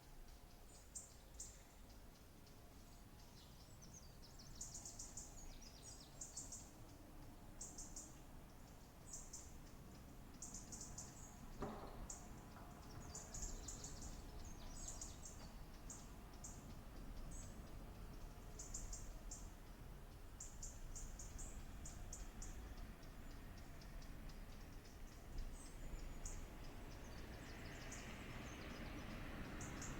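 Birds chirping in short, high-pitched phrases, one after another, over a faint background rush that swells near the end.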